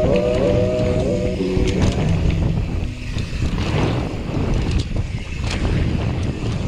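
Wind rushing over the microphone and knobby tyres rolling on packed dirt as a Radon Swoop 170 mountain bike rides a dirt jump line, with occasional sharp knocks and rattles from the bike. Background music fades out in the first second and a half.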